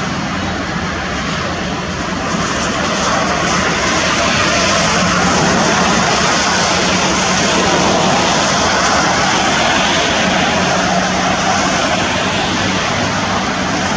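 Steady roar of freeway traffic on wet pavement: tyre hiss and engine drone from passing vehicles, with a low hum underneath.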